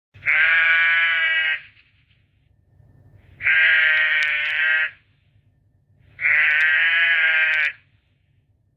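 Sheep bleating three times, each bleat a long, loud call of about a second and a half, evenly spaced a few seconds apart.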